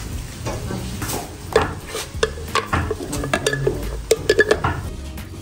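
Metal utensil knocking and scraping against a pot or pan while cooking: a string of sharp clinks with a short ring, coming quickest about four seconds in.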